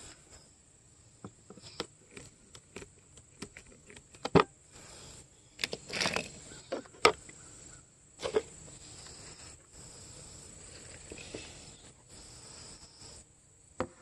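Scattered knocks and clatters as a round plastic bee feeder is lifted off a wooden hive inner cover and tools are handled. The sharpest knock comes about four seconds in, with a cluster around six seconds. A faint steady high-pitched tone runs underneath.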